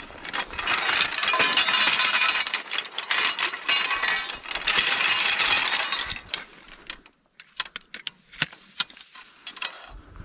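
Metal frame poles of a portable A-frame duck blind clinking and rattling as they are handled. A dense run of clinks and scrapes lasts about six seconds, then thins to scattered single clinks.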